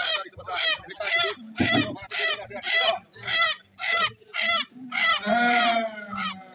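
Rooster squawking over and over, about two short calls a second, ending with one longer, held call about five seconds in.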